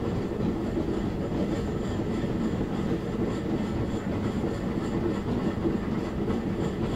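Cumbres & Toltec narrow gauge train rolling along the track, heard from an open car: a steady rumble of wheels and cars with no breaks.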